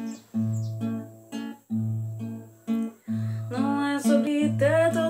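Acoustic guitar playing the intro of a pop ballad: a low bass note and a chord strummed in a steady pattern about twice a second. A singing voice comes in over the guitar about three and a half seconds in.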